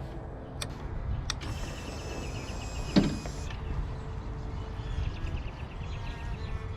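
Harley-Davidson Road King's electrics being tried for a start on a dead battery: two clicks, then a brief electric whir of about two seconds that cuts off sharply, with a knock near its end and faint ticking afterwards. The engine does not start.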